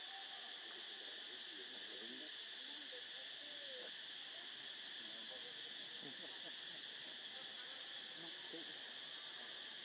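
Steady, unbroken high-pitched drone of an insect chorus (cicadas or crickets) in the surrounding woodland.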